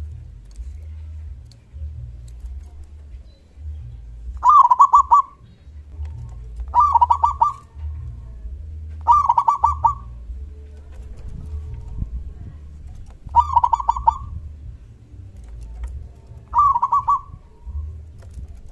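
Zebra dove (perkutut) singing: five short cooing phrases a few seconds apart, each a quick run of notes.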